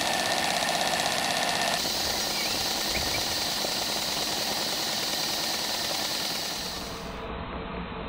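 Stuart Double 10 V twin-cylinder model marine steam engine running on live steam: a steady hiss with fast, even exhaust beats. The sound changes abruptly about two seconds in and again near the end.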